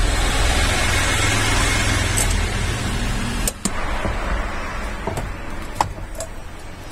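Steady low rumble and hiss that eases off about halfway through, with several light clicks and knocks as the steering motor is handled on the steering column.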